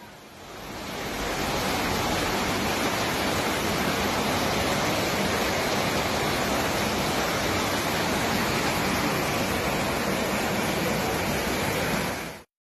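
Muddy floodwater rushing down a gully in a steady, even torrent. It fades in over the first second and cuts off suddenly near the end.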